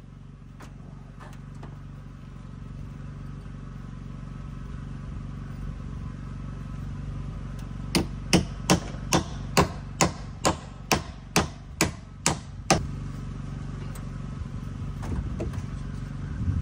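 Hammer strikes on the wooden timber frame of a porch roof: a few light taps near the start, then a run of about a dozen sharp blows, two to three a second, from about halfway in. A steady low hum runs underneath.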